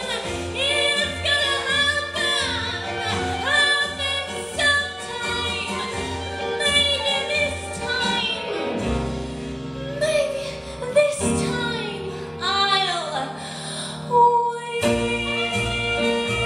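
A woman singing a slow, sustained melody into a microphone over instrumental backing with a pulsing bass beat. The bass beat drops out about halfway through, leaving the voice over held chords, and comes back near the end.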